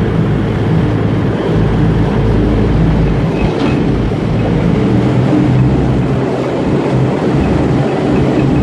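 Pilot boat's engines running with water rushing along its hull as it keeps pace beside an underway container ship: a loud, steady, deep rumble.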